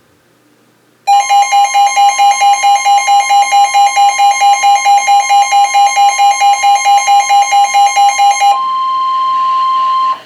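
Emergency alert attention signal: a loud beeping alarm tone, about four beeps a second for some seven seconds, over a steady higher tone that goes on alone briefly after the beeping stops and then cuts off.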